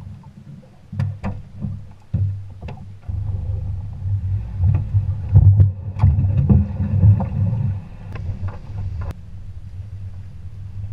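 A boat on its trailer being pulled out of the water and towed behind a pickup truck: a low rumble that grows louder a few seconds in, with scattered knocks and rattles from the hull and trailer.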